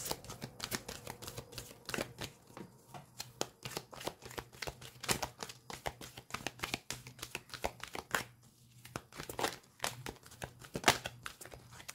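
A deck of oracle cards being shuffled from hand to hand, the cards slipping and snapping against each other in quick, irregular clicks, with one sharper snap near the end.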